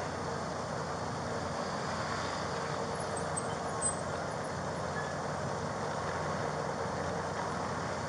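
Steady background hum of road traffic and running vehicles, even throughout with no distinct events.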